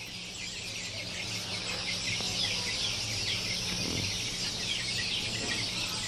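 Dense, continuous chorus of many small birds chirping in quick, overlapping calls, over a faint steady low hum.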